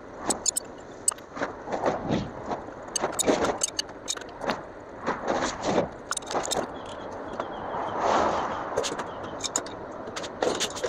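Scattered metallic clicks, clinks and scrapes of small metal parts and tools being handled on a bench, with a brief rustling swell about eight seconds in.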